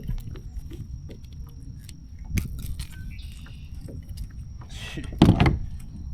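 Scattered knocks, clicks and rustling of a just-caught bass and its topwater lure being handled in a kayak, over a steady low rumble. A short hiss comes about five seconds in, followed right away by the loudest thump.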